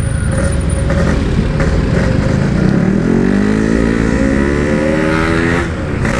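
Yamaha RX-King's two-stroke single-cylinder engine running through its side-mounted standard-look "belek" exhaust with packing while riding. About halfway through it revs up steadily for a couple of seconds, then falls away sharply near the end as the throttle closes or it changes gear.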